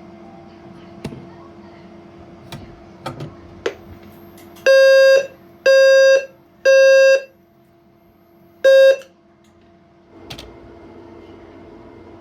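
EST Genesis low-frequency fire alarm sounder giving the temporal-three evacuation signal: three loud half-second tones, each half a second apart. After a pause comes a fourth, shorter tone, as the next round starts and is cut off. A few faint clicks come before the tones, and a single knock follows them.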